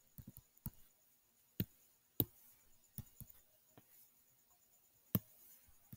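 Faint, irregular clicks and taps, about seven, from writing and selecting tools on a computer screen with a digital pen. The loudest come about two seconds in and near the end.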